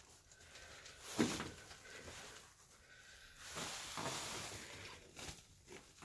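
Faint handling and movement sounds from someone picking their way over a rocky cave floor: a single knock about a second in, then a longer scuffing rustle around four seconds in.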